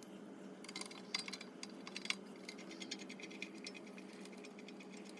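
Faint metallic clicks and ticks of M10 bolts being threaded in by hand into a winch bumper's mounting holes, with a couple of sharper clicks about one and two seconds in.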